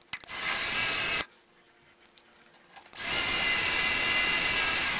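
Compact cordless drill with a small 1/8-inch bit drilling a pilot hole through steel tubing. It runs in two steady, whining bursts: about a second near the start, then again from about three seconds in.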